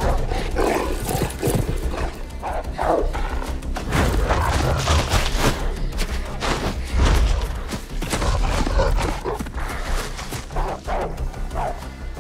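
Film soundtrack: tense score music over a constant deep rumble, with scattered thuds and sharp hits throughout.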